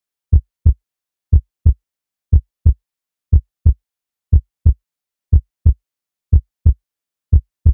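Heartbeat sound effect: pairs of deep thumps, lub-dub, about a third of a second apart, repeating steadily once a second.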